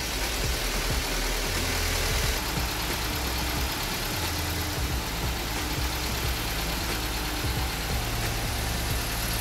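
Freshly rebuilt BMW 1 Series engine idling steadily just after its first start following the rebuild.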